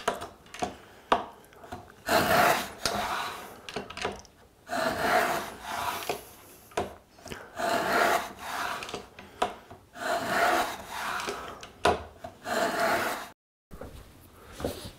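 A cast-iron core box plane cutting a half-round hollow in a wooden board: about five rasping strokes, one every two and a half seconds or so, each peeling off a shaving, with short clicks between strokes as the plane is drawn back and its ratchet advances the iron.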